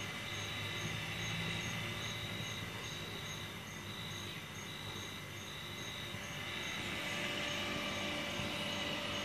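Pool skimmer drawing water in: a steady run of water with a low pump hum, the swirling water getting louder near the end. Crickets chirp through it about twice a second.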